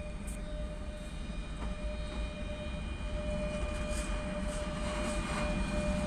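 Electric locomotive and container freight train rolling past: a steady rumble of wheels and wagons with a steady whine over it, growing louder toward the end.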